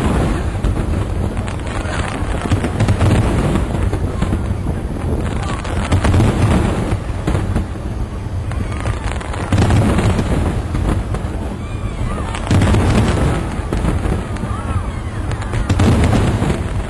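Fireworks display: aerial shells bursting, with a heavy boom about every three seconds over continuous crackling.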